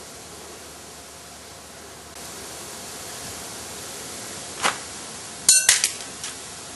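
Metal compressor parts and hand tools being handled on a workbench: a dull knock, then a quick cluster of sharp metallic clinks with a short ring near the end, over a faint steady hiss.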